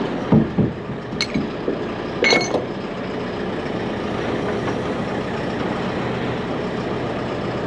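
An engine idling steadily, with a couple of dull thuds and a sharp click, then a ringing metal clank between one and three seconds in.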